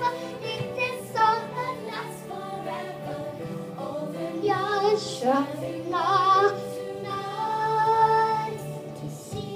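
A young girl singing into a karaoke microphone over backing music, holding long notes.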